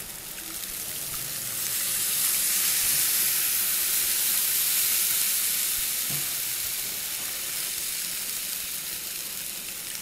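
Tamarind water poured into a hot clay pot of cooking sorrel-leaf (gongura) mixture, sizzling and splashing. The sound swells about two seconds in and slowly fades.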